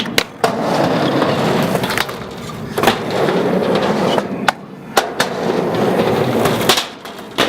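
Skateboard wheels rolling on a ramp, with several sharp clacks as the board hits the coping and deck during staple-gun tricks.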